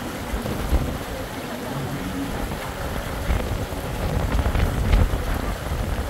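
Wind buffeting the microphone on a ship's open deck: an uneven, gusting low rumble over a steady hiss.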